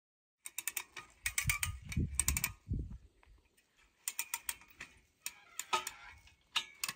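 Ratchet wire tensioner on a fence wire clicking in short runs of quick clicks with pauses between them, as the wire is cranked tight.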